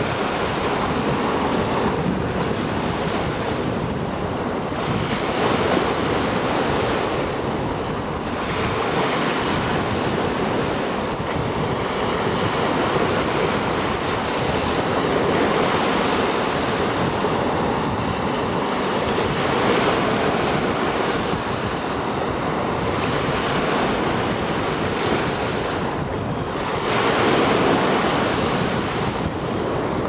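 Small lake waves breaking and washing over sand and stones at the shoreline, a steady churning hiss that swells and falls, with one louder wave breaking near the end.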